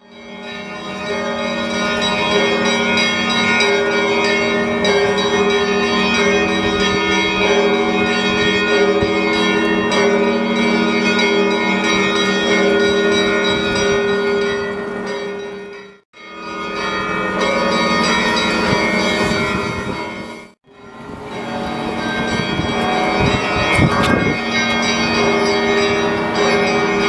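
Russian Orthodox cathedral bells ringing together for the evening service, many bells sounding at once. The ringing breaks off abruptly for a moment twice, about 16 and 20 seconds in.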